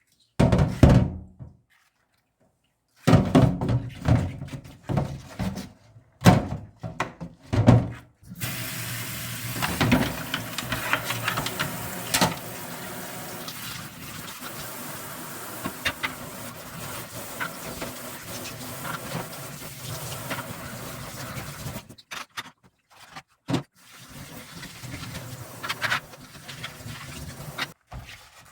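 Water running steadily, as from a tap, for about fourteen seconds. Short clattering handling sounds come before and after it.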